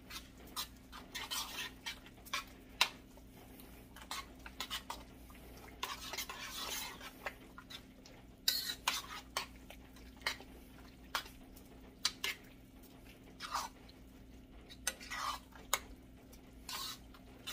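Spoon stirring rice and kidney beans in an enamelled Dutch oven: irregular scrapes and light knocks against the pot, with one longer scrape about six seconds in.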